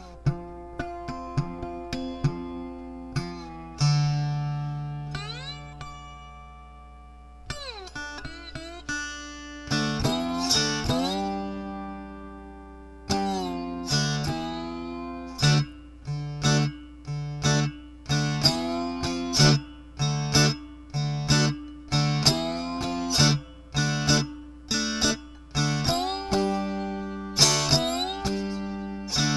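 Three-string cigar box guitar tuned D-A-D, played through an amp on its piezo pickup: improvised picked notes with several sliding pitch bends, settling into a steady rhythmic picking pattern about halfway through.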